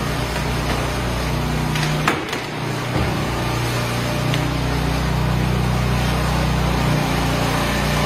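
Small engine of a motorized concrete power buggy running steadily as it drives loaded with concrete, getting a little louder toward the end as it comes closer. A single knock about two seconds in.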